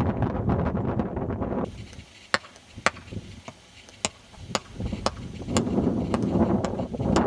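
Wind buffeting the microphone, then from under two seconds in a series of sharp knocks, evenly spaced at about two a second.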